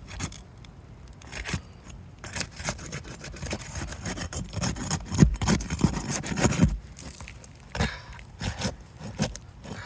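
A tool scraping and knocking under an asphalt roof shingle, working to free a nail, in irregular scrapes and sharp clicks.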